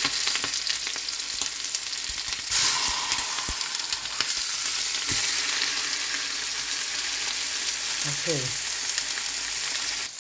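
Salmon fillets frying in butter with garlic, ginger and scallions in a hot pan: a steady sizzle. The sizzle grows louder and brighter about two and a half seconds in, as a second fillet goes into the hot butter.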